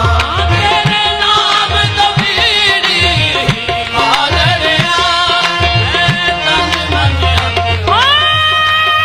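Live qawwali music: harmoniums and singing over steady hand-drum beats. Near the end a note slides up and is held.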